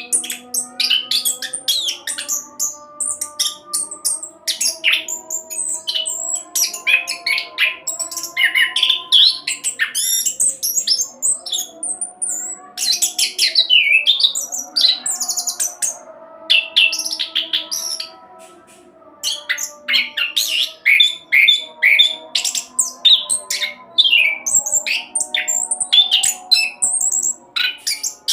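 Chestnut-capped thrush (anis kembang) singing a fast, rolling song of rapid chirps, whistles and trills, with a brief pause about two-thirds of the way through.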